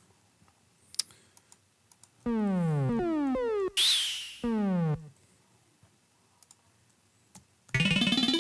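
Synthesized sound effects played back: a run of quick downward-gliding synth tones about two seconds in, a short hissy swoosh, then one more falling sweep. Near the end a denser, louder synth texture starts with a rising sweep. Faint computer clicks come before them.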